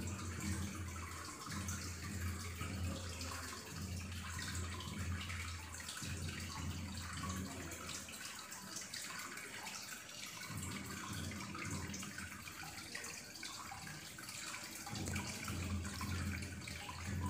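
Steady hiss like running water, with a low hum underneath that cuts out and comes back a couple of times.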